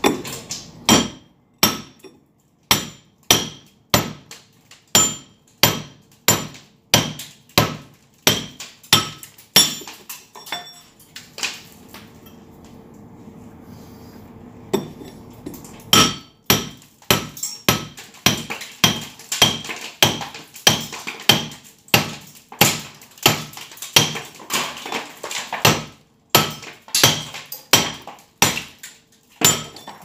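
Hammer striking a steel chisel to chip a hole through a concrete wall: steady blows of about two a second, each with a metallic ring. The hammering stops for a few seconds about ten seconds in, then starts again at the same pace.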